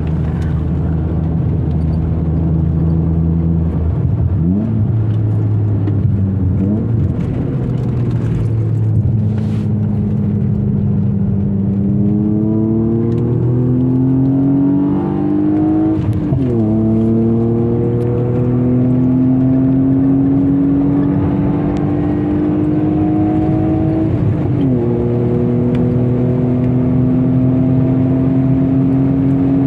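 BMW 323ti Compact's 2.5-litre straight-six, heard from inside the cabin, running at a steady pitch at first through a corner and then pulling hard with rising pitch under full acceleration. Two upshifts break the climb, each a sudden drop in pitch, about halfway through and again near three-quarters of the way.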